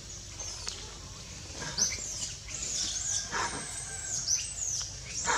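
Birds chirping in the forest canopy: many short, high chirps that drop in pitch, repeated every half second or so, with a few louder, fuller calls about three seconds in and near the end.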